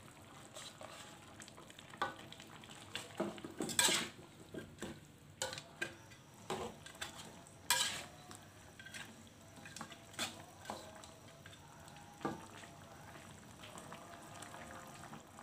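Metal ladle stirring and scraping around a metal wok of spicy chicken-feet and meatball broth, in irregular clinks and scrapes, the loudest about four and eight seconds in, thinning out near the end. A faint sizzle of the broth cooking runs underneath.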